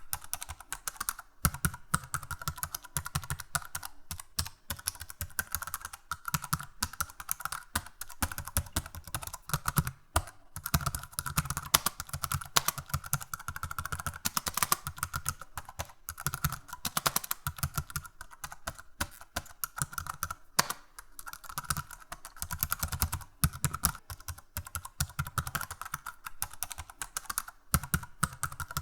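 Computer keyboard typing: fast, irregular key clicks with brief pauses now and then.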